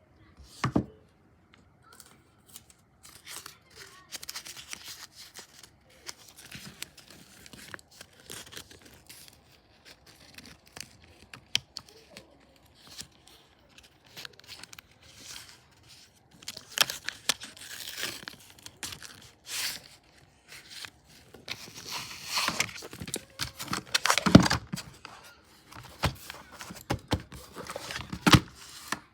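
Repeated tearing and crinkling, as of tape or paper being ripped and handled, in irregular strokes with scattered clicks. Loudest and densest about two-thirds of the way through and again near the end.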